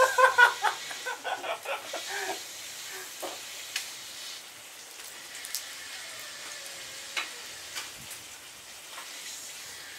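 Food sizzling in a small pan held over a wood fire, a steady hiss with scattered sharp crackles. Loud voices or laughter over the first two seconds or so.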